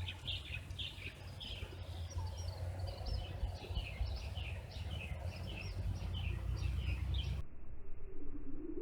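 Birds chirping outdoors in a long run of short, high chirps, about two a second, over a steady low rumble. Both cut off abruptly about seven seconds in.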